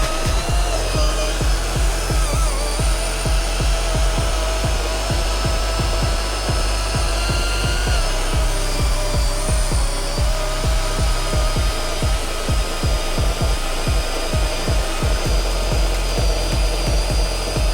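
Backing music with a steady beat over a Makita UC030 40V XGT brushless battery chainsaw cutting hardwood. The saw's electric motor whine holds steady and dips in pitch about halfway through as the cut loads it.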